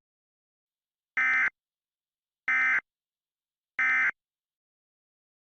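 Emergency Alert System end-of-message tones: three short, identical warbling data bursts of SAME digital code, about a second and a quarter apart, marking the close of the alert.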